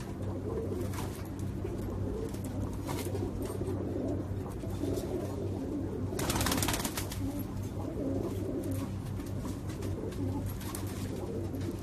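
Domestic pigeons cooing repeatedly in a loft cage over a steady low hum. A brief rustle comes about six seconds in.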